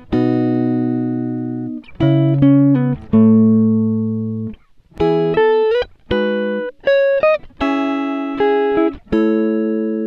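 Background music: plucked guitar chords struck roughly every second or two, each ringing out and fading before the next.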